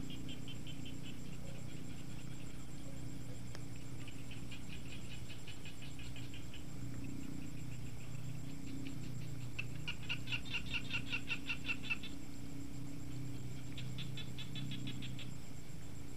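Frogs calling in repeated trains of rapid pulses, about ten a second, each train lasting one to two seconds and coming four times, the loudest about ten seconds in, over a low steady hum.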